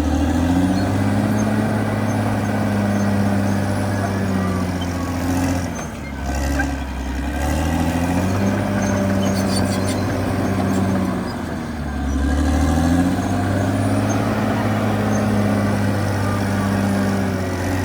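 Diesel engine of a CAT D6R XL crawler bulldozer running hard. Its note sags with a brief drop in loudness about six seconds in and again about twelve seconds in, then climbs back.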